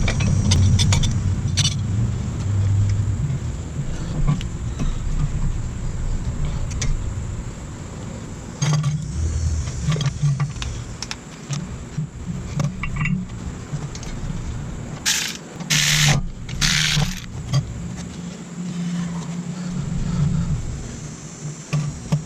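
Hand work on a car's front brake assembly: scattered metal clinks and knocks of tools and parts over a low steady rumble, then three short hissing bursts about fifteen to seventeen seconds in.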